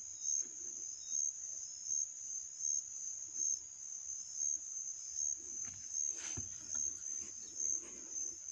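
Insects chirping steadily, a high-pitched trill that pulses about twice a second. A soft knock with a low thud comes about six seconds in.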